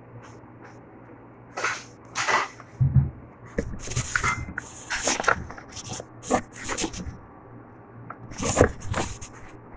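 Irregular rustling, clicks and knocks of close handling, with a dull thump about three seconds in.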